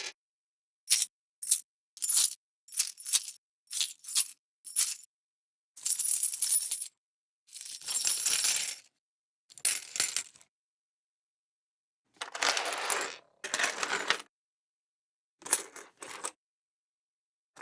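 Coins dropping and jingling: a run of short metallic clinks of single coins landing, then several longer spells of coins jingling and rattling together, each cut off into silence.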